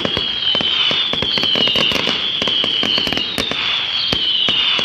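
Fireworks going off: dense, rapid crackling cracks under several high whistles that each fall slowly in pitch, one after another.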